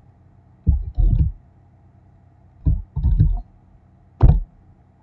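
Dull thumps of keys being struck on a computer keyboard, in a few short clusters, ending with a sharper click about four seconds in.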